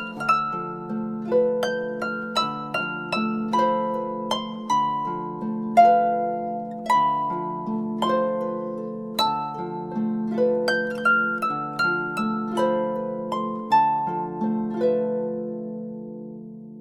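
A Samsung Galaxy S4 ringtone playing: a melody of quick, decaying plucked notes over held low notes that change about once a second. The notes stop near the end and the tone fades out.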